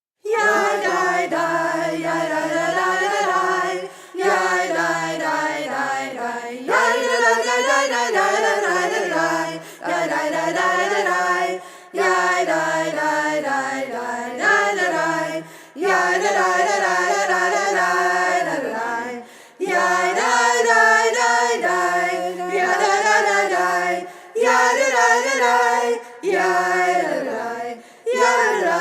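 Voices singing a cappella, a melody in short phrases of a few seconds each, with brief breaths between them; it starts suddenly right at the beginning.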